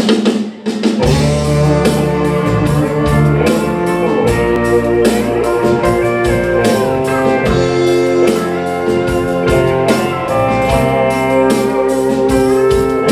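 Live band playing a bluesy instrumental intro with guitar, bass and drums, the bass and drums coming in about a second in.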